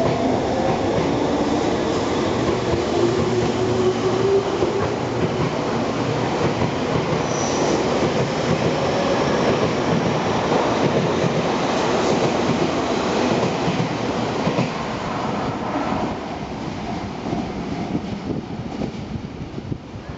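Tobu 30000 series electric train pulling out and gathering speed: a rising motor whine in the first few seconds over the rumble of wheels on the rails. The cars then run past with a clatter over the rail joints, and the sound fades over the last few seconds as the train moves away.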